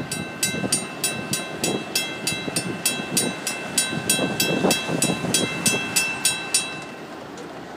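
Railroad grade-crossing bell ringing at about four strikes a second while the gate arm rises after the train has cleared, cutting off about seven seconds in once the gate is up. Under it runs the low rumble of the receding freight train.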